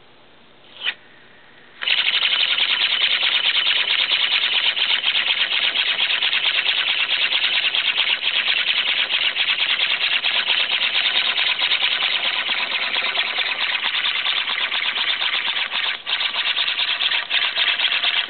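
Model Comber rotary steam engine running, its exhaust a loud hiss made of very rapid pulses. A short puff comes about a second in before it gets going, and it dips briefly near the end.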